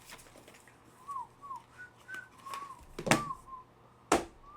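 A person whistling a string of short notes, a little tune that falls in pitch near the end, with two sharp clicks of handling about three and four seconds in.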